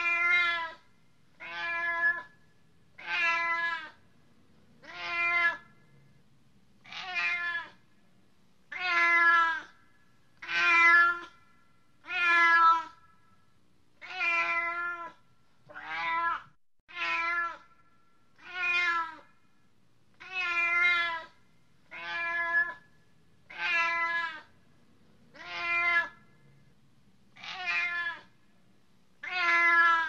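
Domestic cat meowing over and over, about one short meow every one and a half to two seconds, with brief quiet gaps between them.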